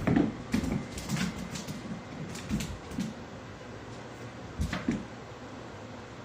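A series of irregular knocks and bumps, loudest near the start and again just before the end.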